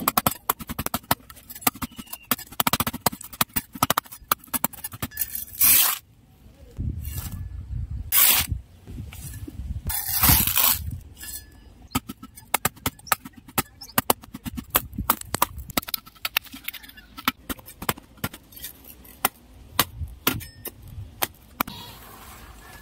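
A small metal spade scraping and chopping into dry, caked earth: a dense run of sharp clicks and crunches as the crust cracks and clods tumble, with a few longer scrapes of the blade through the soil near the middle.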